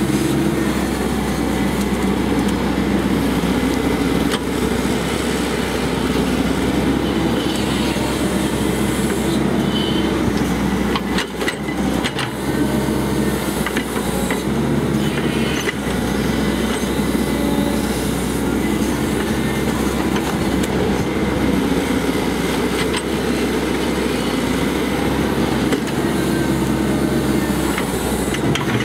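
Cat 312C hydraulic excavator running steadily under working load, its diesel engine droning with a high hydraulic whine over it, and a few metal clanks from the arm and bucket about a third of the way in while it digs silt out of a trench.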